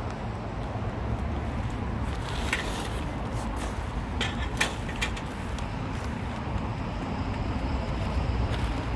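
Steady low vehicle rumble, with a few sharp clicks and plastic rustles between about two and five seconds in as garbage bags and junk are handled.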